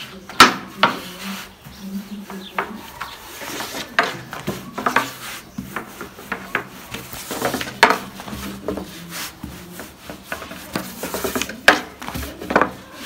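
Wooden rolling pin rolling and rubbing over thin dough on a wooden board as sheets of yufka are rolled out, with irregular sharp wooden knocks, loudest about half a second in and again near the end.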